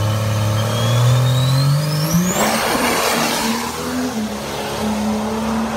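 Diesel drag-race pickup launching off the line: the engine revs up, with a high whine rising alongside for about two seconds, then a burst of noise as it leaves, and it carries on pulling hard down the track.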